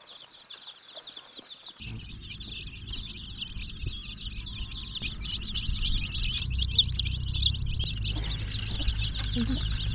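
A group of chicks peeping rapidly and continuously. About two seconds in, a low steady hum starts beneath them and slowly grows louder, which fits the toy train's small electric motor running.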